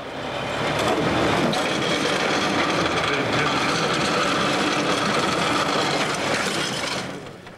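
Heavy wrecker tow truck running and hoisting a crushed pickup on its boom and chains: a steady mechanical noise that fades out near the end.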